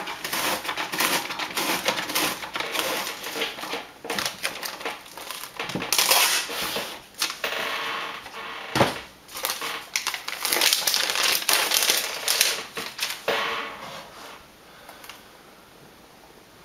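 A decorative paper panel pulled through a Xyron sticker maker, which lays adhesive film on its back. The paper and film give an irregular crackling and rustling that stops about two seconds before the end.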